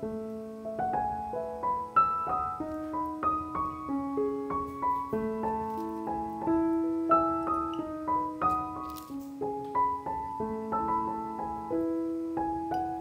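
Background piano music: a gentle melody of single held notes over soft chords.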